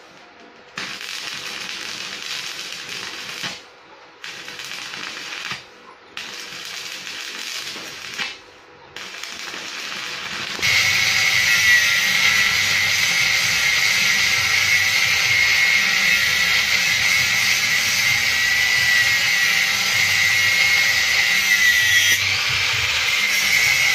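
Stick (arc) welding hissing and crackling in four short runs with brief pauses between them. About ten seconds in, an angle grinder with a thin cut-off disc starts cutting through a threaded steel rod: a steady high whine over grinding noise, dipping briefly near the end.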